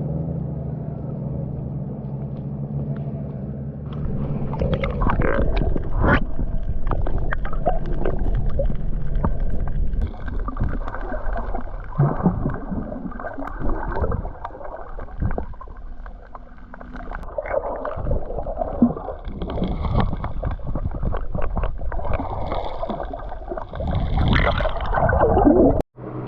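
Boat engine running with a steady low hum. From about four seconds in, wind buffets the microphone, rough and uneven, with scattered knocks over the engine.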